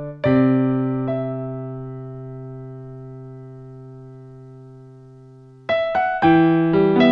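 Piano introduction to a slow ballad. A chord is struck and left to ring, fading away over several seconds, and then the piano picks up again with a series of notes near the end.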